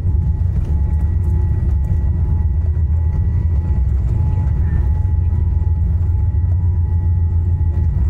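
Steady low rumble of cabin noise inside a Boeing 787-9 airliner, with two faint steady whines above it.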